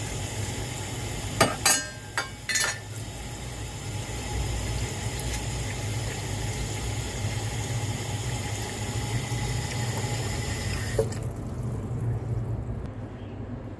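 Water running or pouring steadily, with a few sharp clinks about a second and a half in. The hiss of the water cuts off abruptly near the end.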